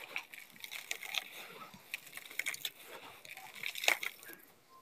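Gritty red dirt being scooped by hand in a plastic bowl and poured back into it, a dense crackling hiss of falling grains full of small clicks, with one sharp click about four seconds in.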